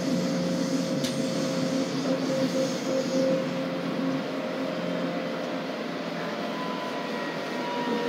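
Busan Metro Line 2 subway train running, heard from inside a passenger car: a steady rumble of wheels on rail with a low hum from the drive. Near the end a whine slowly falls in pitch as the train slows for Geumgok station.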